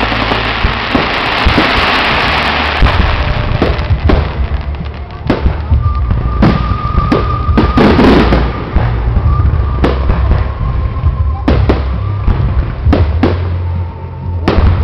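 Aerial fireworks bursting overhead: a dense crackle of star effects for the first few seconds, then a string of sharp, separate bangs.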